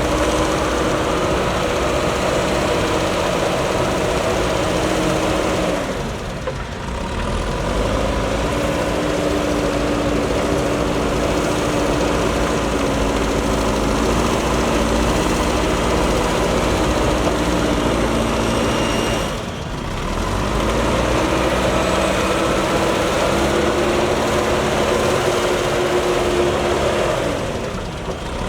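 JCB backhoe loader's diesel engine running hard as the machine works. Three times the engine pitch sags, dips briefly and climbs back up.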